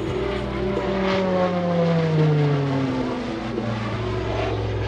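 Short Tucano's turboprop engine and propeller on a close pass, their pitch dropping as the aircraft goes by, loudest a little after two seconds in.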